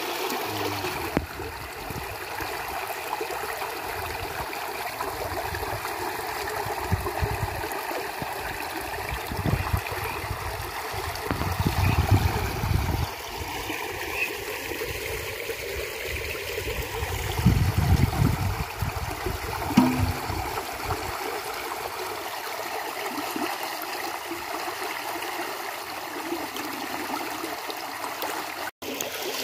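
Muddy water rushing steadily through the opening of a bamboo-fence fish trap into its net, with two brief low rumbles partway through.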